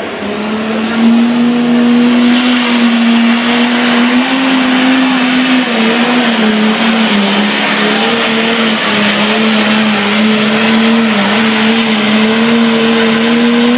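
A diesel tractor-pull engine running flat out under load as it drags the sled, a loud steady drone. Its pitch sags and wobbles slightly from about halfway through.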